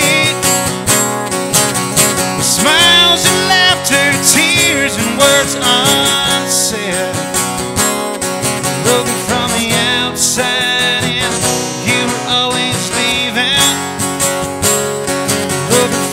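Acoustic guitar strummed and picked in a country song, with regular strums under a ringing chord melody.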